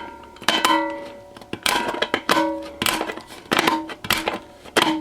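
Stainless steel utensil bin clanking and ringing as a hand tool works it: sharp metal strikes about every half second, each leaving the same bell-like ring that fades quickly.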